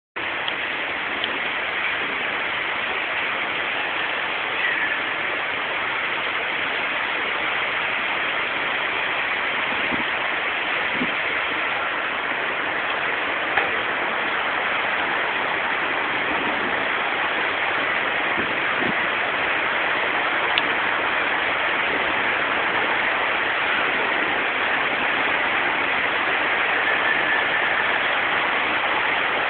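Steady rain of a thunderstorm pouring down, an even wash of noise with a few faint ticks of drops striking.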